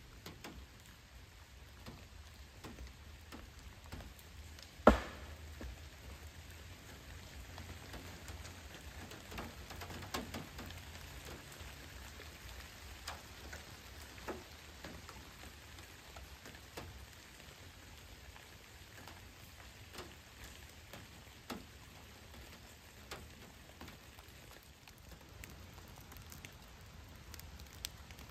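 Steady rain falling on wet woodland, with scattered drips tapping close by and one much louder, sharp tap about five seconds in.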